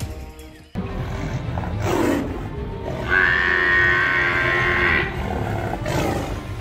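Animal cries over background music: a short sweeping call about two seconds in, then a loud, long high-pitched cry lasting about two seconds.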